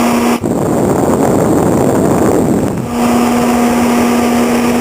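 A CT520D welder-plasma cutter running with a steady hum. The hum breaks off suddenly for about two and a half seconds while a rushing noise takes over, then returns.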